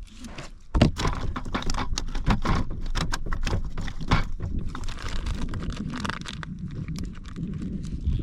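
Irregular knocks, clicks and rattles of fishing gear being handled in a kayak, over a steady low rumble.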